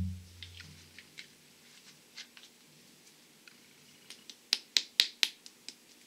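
A hand tapping a heavy bottle of thick ketchup to get the sauce to pour. There are scattered light clicks, then a quick run of four sharp taps about four and a half seconds in.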